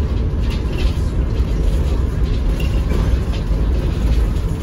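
Inside a Volvo B7RLE Wright Eclipse Urban single-deck bus under way: the steady low rumble of its rear-mounted six-cylinder diesel mixed with road noise, with a few faint high ticks from the cabin.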